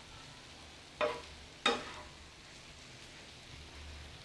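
Metal spatula scraping and knocking against a flat tawa griddle while stirring diced liver frying on it, with two sharp strokes about a second and a second and a half in, over a faint sizzle.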